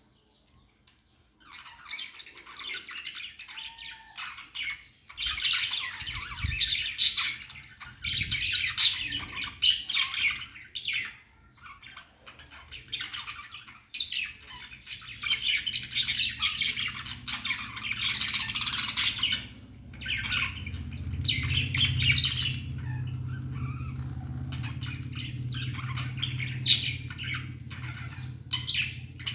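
Budgerigars chattering and warbling in quick, dense bouts of chirps and squawks, with brief pauses between bouts. A low steady hum comes in about two-thirds of the way through under the birds.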